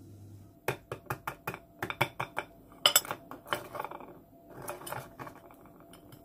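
A table knife tapping the shell of a boiled egg standing in a ceramic egg cup: a quick run of sharp taps, then crunching and scraping as the top of the shell is cut away.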